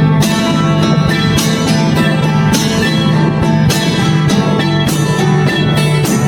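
Background music led by plucked guitar, in a country or bluegrass style, with a steady beat.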